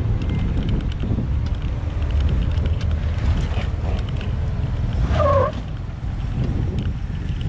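Jeep Wrangler's engine working at low speed as the 4x4 crawls over logs in an off-road pit, under heavy wind noise on the microphone. A brief falling squeal stands out about five seconds in.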